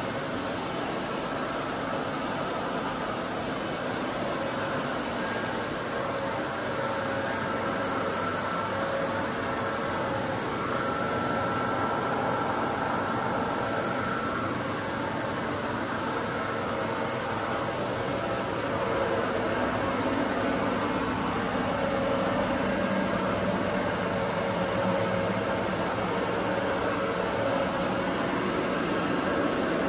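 Machine-shop machinery running: a steady mechanical hum and hiss with a few faint steady whines, growing slightly louder in the second half.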